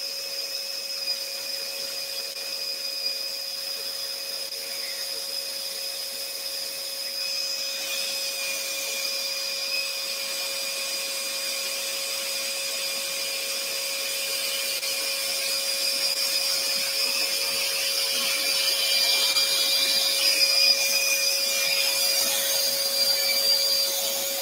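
Scroll saw running and cutting a thin wooden bracket, with a dust extractor running alongside. The result is a steady whine and hiss that grows slightly louder over the second half.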